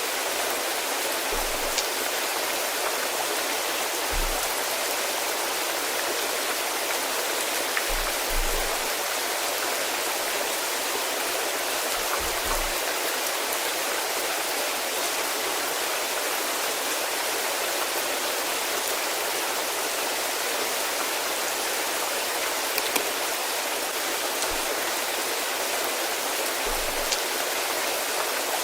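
Steady rainfall, an even hiss with a few sharper single drop ticks standing out now and then.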